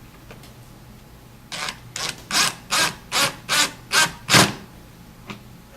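Power drill driving a 1/2-inch flathead screw through a metal L bracket into the cabinet's wood side panel, in about eight short bursts roughly 0.4 s apart, the last one loudest.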